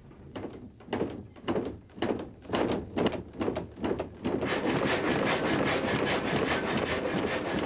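Water-powered frame saw in an old sawmill starting up once its water is let in: slow, separate knocks about two a second that quicken, then from about four seconds in the saw runs at a fast, even rhythm.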